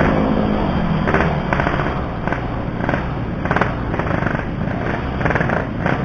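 Yamaha RX-King 135 cc two-stroke motorcycle engine slowing down, its note falling in the first half second. It then runs low with irregular popping and crackling.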